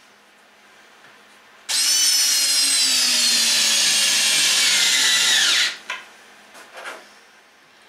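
Cordless drill driving a screw through a wooden spar into the trailer's roof framing. The motor runs for about four seconds, its pitch sinking slowly as the screw bites and dropping just before it stops, and a couple of light clicks follow.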